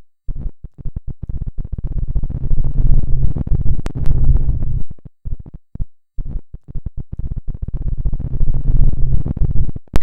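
Choppy, bass-heavy electronic sound cut into rapid irregular bursts with brief dead gaps between them, like a stuttering scratch effect.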